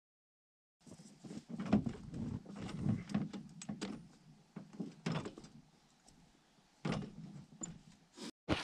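Irregular knocks, clanks and rattles of a Ski-Doo snowmobile being tipped up and handled for work on its rear suspension, starting about a second in.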